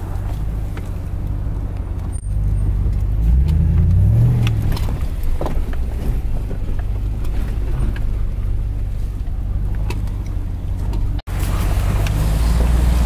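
Ram Power Wagon's Hemi V8 running at crawling speed, heard from inside the cab as a steady low rumble. The engine rises briefly in pitch about four seconds in, then settles back.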